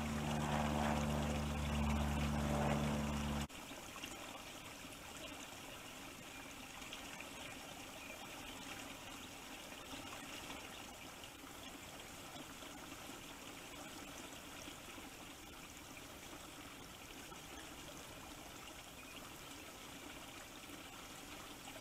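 A steady engine-like hum that cuts off suddenly about three and a half seconds in, then a steady rushing hiss of wind and water at a wetland pond.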